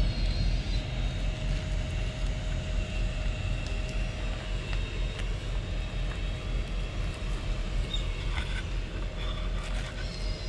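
Steady low rumble of outdoor background noise, with a faint steady hum and a few short high-pitched sounds about eight seconds in.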